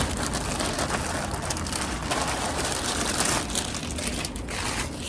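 Packaging crinkling and rustling steadily as a package is opened by hand.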